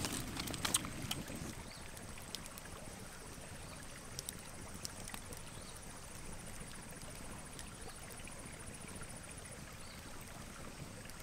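Open wood fire crackling, with scattered small pops, over a steady low rush like flowing water. A faint, rapid high ticking runs for several seconds in the middle.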